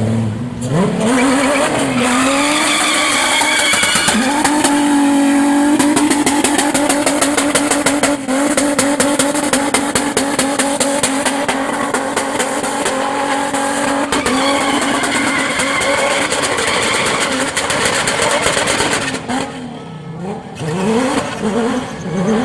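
A car engine revved hard and held near the top of its revs for about ten seconds while the tyres squeal in a sustained drift, then the revs drop, followed by several quick rev blips near the end.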